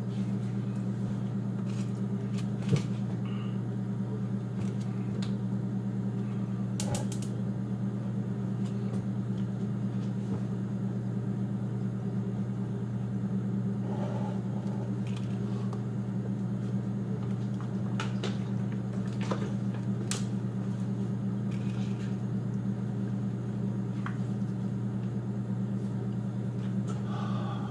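A steady low machine hum with two fixed tones, and a few faint clicks and taps scattered through it, one sharper tick about three seconds in.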